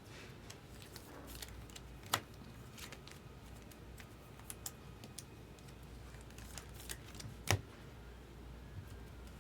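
Trading cards being handled: scattered light clicks and taps, with two sharper taps, one about two seconds in and one about seven and a half seconds in.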